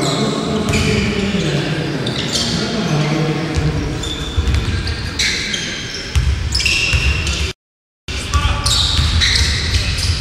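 Sounds of a basketball game in a gym: sneakers squeaking on the court and a ball being dribbled, over voices in the hall. The sound cuts out completely for about half a second three quarters of the way through.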